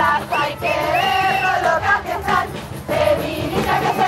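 A crowd of women's voices singing a chant together, with notes held and bending in pitch.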